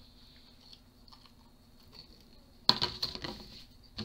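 A faint steady hum with a thin high tone, broken about two and a half seconds in by a sharp click and a short scuffle of smaller clicks, with one more click near the end.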